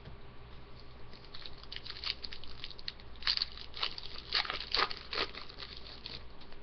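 Foil wrapper of a hockey card pack crinkling and crackling as it is torn open and handled, in a run of quick crinkles that grows loudest in the middle.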